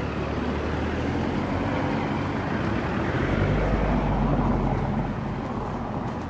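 A motor vehicle's engine hum on a city street under general traffic noise. It swells about halfway through, as if the vehicle passes close by, and then eases off.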